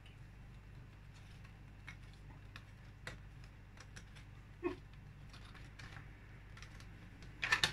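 Faint, scattered plastic clicks and taps as a tower fan's column is worked onto its round plastic base, with a slightly louder knock just past halfway and a quick run of louder clicks at the very end.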